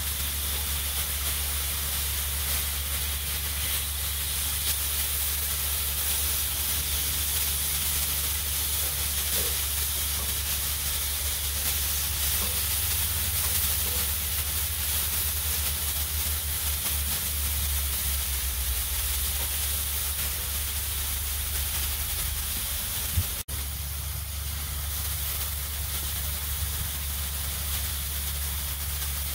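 Diced marinated steak sizzling steadily on a hot flat-top griddle, with a steady low hum underneath. There is one short break about three-quarters of the way through.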